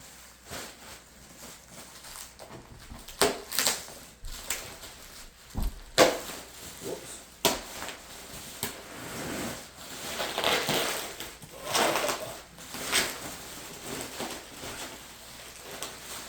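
Bubble wrap and plastic packaging being crinkled and pulled off a surfboard, with irregular crackles and rustling swishes.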